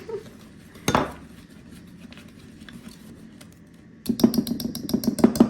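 A utensil knocking against a mixing bowl while stiff cookie dough is stirred: one sharp knock about a second in, then a fast clatter of about eight knocks a second over the last second and a half. The dough is too thick to mix easily.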